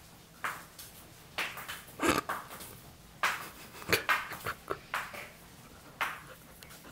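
A cat's paws scrabbling and skidding on a laminate floor as it dashes and spins: a string of quick, uneven scuffs and light thumps, the loudest about two and four seconds in.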